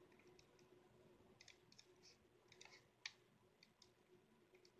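Faint, irregular clicks from a laptop's controls during digital drawing, with one sharper click about three seconds in, over a faint steady hum.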